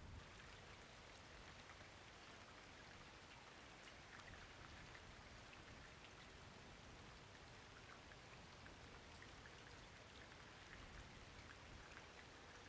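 Faint, steady light rain, with many separate drops ticking through an even hiss.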